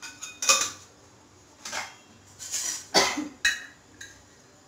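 Steel kitchen containers and utensils clinking and knocking together: about six sharp metallic clinks, each with a short ring, spread unevenly over a few seconds.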